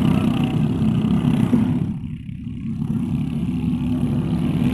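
Several ketinting longtail boat engines, small 6.5 hp single-cylinder motors, running hard at racing speed. The sound dips briefly about two seconds in, then comes back up.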